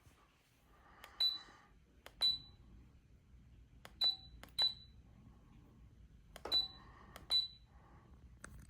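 Short electronic beeps from a ceiling fan's control receiver, each paired with a click, six times in loose pairs about a second apart, as it takes commands.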